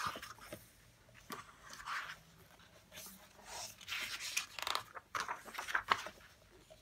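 Glossy pages of a hardcover book being turned by hand: a series of short papery swishes and rustles, with small taps as the pages settle.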